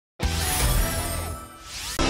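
Short musical sting with sustained low notes, starting sharply just after the opening, dipping in the middle and swelling again near the end.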